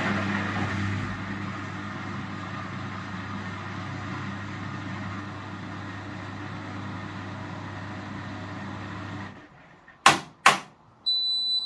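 Indesit washing machine's drain pump running with a steady hum, emptying the last residual water at the end of the cycle, then stopping abruptly. Two sharp clicks follow as the machine switches off, and a high end-of-cycle beep starts near the end.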